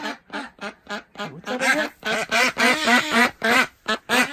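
Broody Khaki Campbell ducks quacking in quick runs of short calls, with a brief pause a little before the end.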